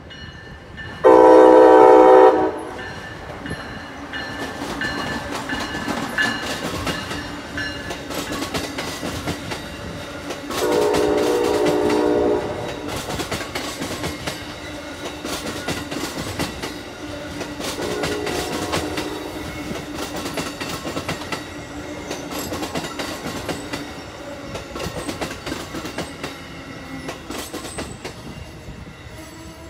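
Amtrak Northeast Regional train passing with its horn sounding three times: a loud blast about a second in, another around ten seconds in, and a fainter, shorter one about eighteen seconds in. Between the blasts the wheels clack over the rail joints, and the train sound fades near the end.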